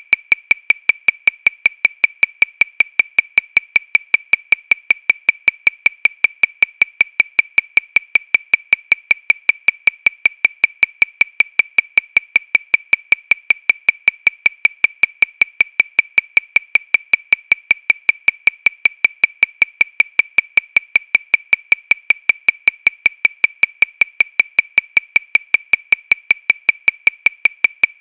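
Metronome clicking at 314 beats per minute, about five short, high clicks a second, evenly spaced and all the same strength.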